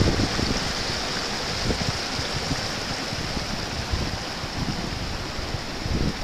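Steady rushing hiss of a boiling sulfur hot spring: hot water and steam churning and running over rocks.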